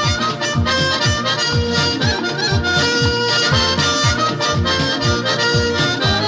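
Background music: an instrumental track with a steady drum beat under a reedy lead melody.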